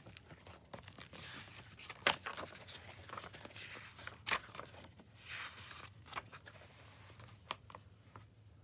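Pages of a paperback picture book being handled and turned: soft paper swishes and rustles, broken by a few sharp taps and clicks.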